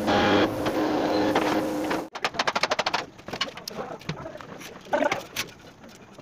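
A loud steady noise with a low hum that stops suddenly about two seconds in, then a fast rattle of clicks for about a second, then scattered light scrapes and taps of a hand marking tool drawn along a steel plate.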